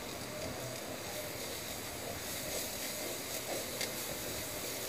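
Steady sizzle of chopped onions frying in oil in a non-stick pan, with a few faint taps from a wooden spatula stirring them near the end.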